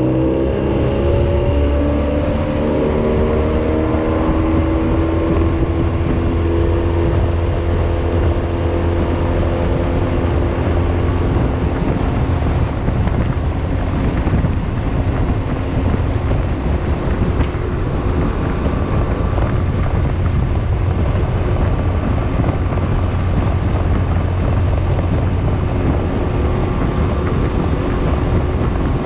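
Outboard motor on a small skiff accelerating, its pitch rising over the first few seconds and then levelling off, then running steadily at speed with wind rushing over the microphone.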